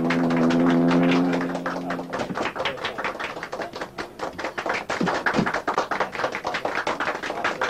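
A crowd clapping in quick, uneven claps, with a few shouts around the middle. A steady held tone sounds over the first two seconds and then stops.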